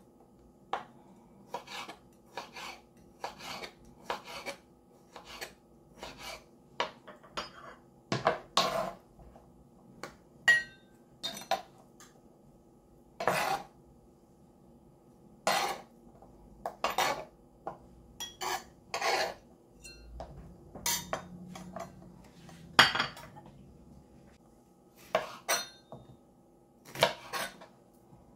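Kitchen knife slicing soft fruit on a plastic cutting board: a string of sharp, irregular taps as the blade strikes the board, closer together in the first part and more scattered later, over a faint steady hum.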